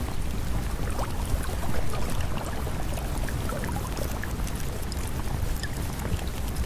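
Steady rushing water noise with a deep rumble underneath and scattered faint ticks.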